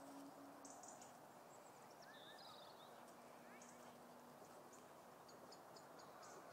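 Near silence: faint outdoor ambience with a few faint bird chirps a couple of seconds in and a faint steady low hum.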